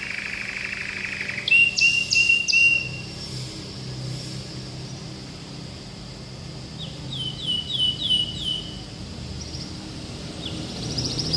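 Domestic canary singing in varied phrases: a fast trill at the start, a run of repeated bright chirps, a quieter spell, then about five falling whistled notes, and a fast high trill beginning near the end.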